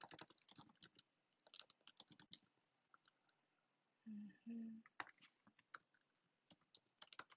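Computer keyboard being typed on: quiet keystroke clicks in irregular runs, pausing briefly, with a short murmured voice sound about four seconds in.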